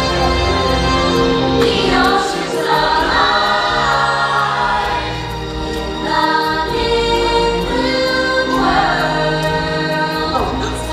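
A stage musical's song, with a choir singing over the music.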